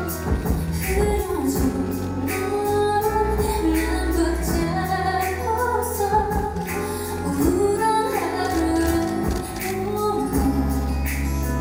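A woman singing a slow, emotional melody into a handheld microphone over instrumental accompaniment.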